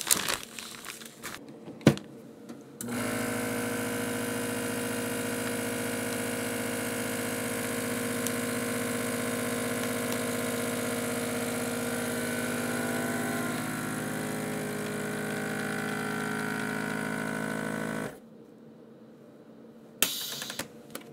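Countertop edge-type vacuum sealer, with a click as it is closed, then its pump running with a steady hum for about fifteen seconds while it pulls the air out of a bag holding a cured pork neck. The hum cuts off suddenly near the end.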